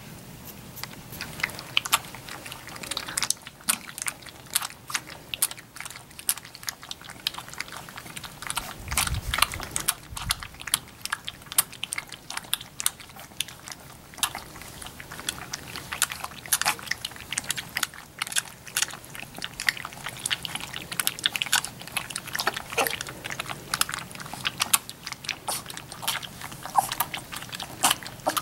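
Three-week-old Labrador retriever puppies lapping and slurping milky food from a stainless steel puppy feeding saucer: a dense, irregular patter of small clicks from several mouths at once. A dull low thump comes about nine seconds in.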